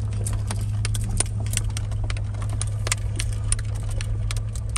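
Car rolling slowly over a gravel road, heard from inside the cabin: irregular crunching clicks and pops of gravel under the tyres over a steady low engine and road hum.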